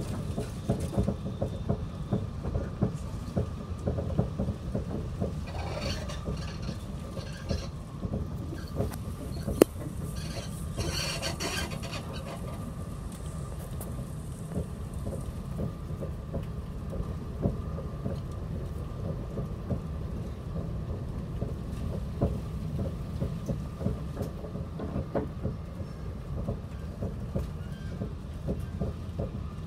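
Steady low rumble and rattling of a moving passenger vehicle heard from inside the cabin, with irregular knocks and a brief hiss about six seconds in and again around ten to twelve seconds in.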